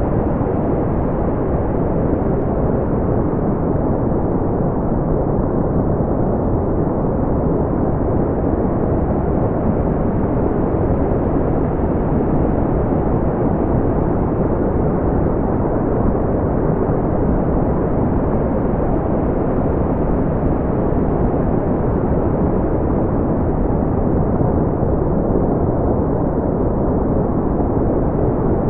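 Steady brown noise: an even, deep rumbling hiss with most of its energy in the low range and little above a few thousand hertz, unchanging throughout.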